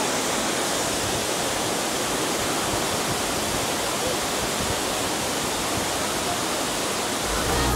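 Waterfall in full monsoon flow: a steady rush of water pouring over rock into a pool.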